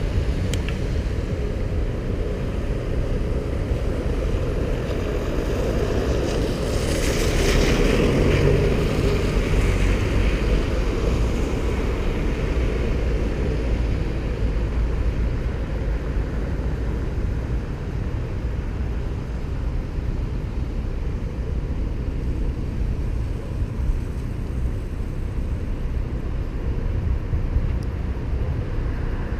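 Wind rushing over the microphone and a steady low rumble of road noise from a moving road bike. A louder rushing swell builds about six seconds in and fades by about ten seconds.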